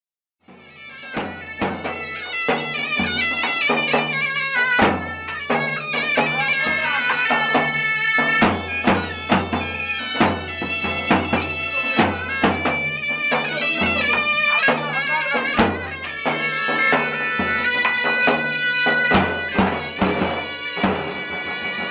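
Kurdish folk music: a shrill double-reed zurna playing a wavering melody over a steady low drone, with dahol drum strokes keeping the beat. It starts about half a second in, out of silence.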